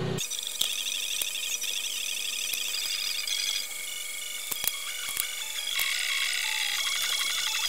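Sped-up audio of hand work on a circuit board, pitched up: rapid high chattering with scattered sharp clicks and nothing in the low range. It cuts in abruptly just after the start.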